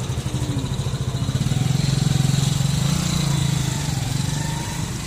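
A vehicle engine running with a steady low pulsing hum. It grows louder about two seconds in and eases off toward the end.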